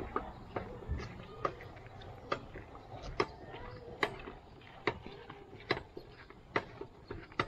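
Footsteps of people walking on an asphalt road in flip-flops. A sharp slap comes at an even pace, a little more than once a second.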